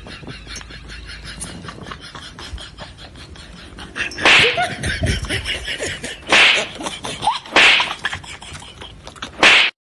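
Four loud, short, sharp hits, the first about four seconds in and the rest one to two seconds apart, over faint background noise.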